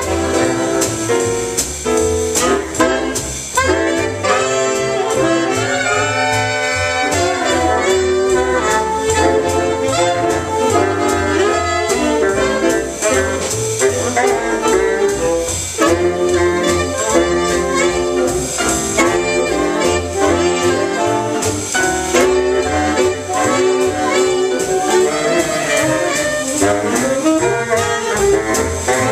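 Jazz big band playing live: a saxophone section with baritone sax, with trumpets and trombones, over drums, piano and double bass. The ensemble plays continuously with a steady beat.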